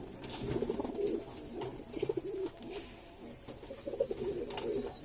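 Domestic pigeons cooing over and over in a wire cage, low rolling coos overlapping, with a few light clicks.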